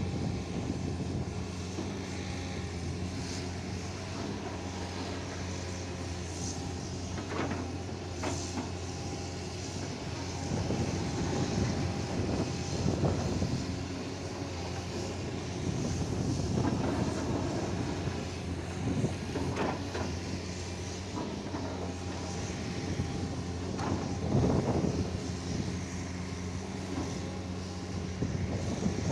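XCMG 250LC hydraulic excavator's diesel engine running steadily, swelling louder for stretches under load. A few short clanks and scrapes from the digging are spaced through it.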